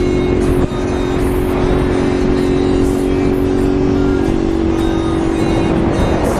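Honda CG Titan 125's single-cylinder four-stroke engine running at a steady cruise, with wind rushing over the microphone of an on-bike camera.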